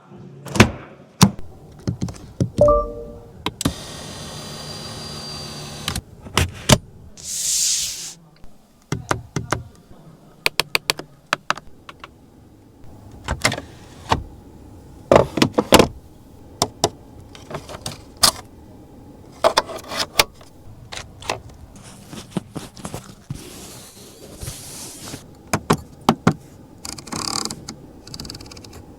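BMW 3 Series 330Li operated at close range: a long run of sharp clicks and knocks from its switches, latches and trim, with an electric motor whirring steadily for about two seconds a few seconds in, and short hisses along the way.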